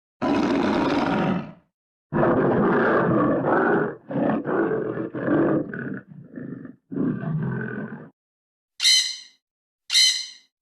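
Animal sound effect: a large animal roaring once, then a long run of roars and growls lasting about six seconds. Near the end come two short, high-pitched calls from a different animal.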